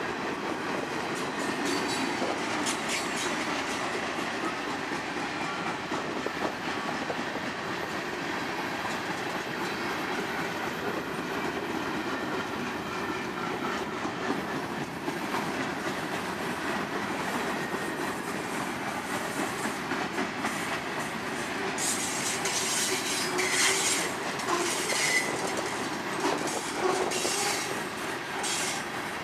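Freight cars of a passing Union Pacific freight train rolling by: a steady rumble of steel wheels on rail with rhythmic clicking over the rail joints. Brief high wheel squeals and clanks in the last several seconds.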